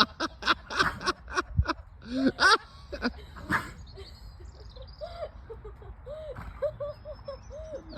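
People laughing in quick bursts for the first few seconds. Then a run of short, arched bird calls repeats every half second or so, with fainter high birdsong behind.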